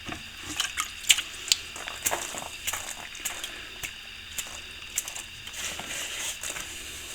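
A metal hand tool scraping and picking out soft old lime mortar between loose bricks: irregular scrapes and clicks, busiest in the first couple of seconds.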